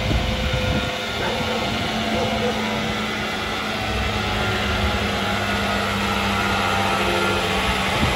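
Zenoah SR110-1 11-horsepower engine chipper-shredder's engine running steadily with no branch being fed, a brief knock at the very start.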